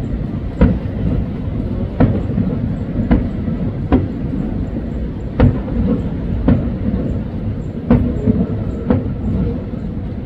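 Aerial fireworks shells bursting, a sharp bang roughly every second, over a steady low rumble.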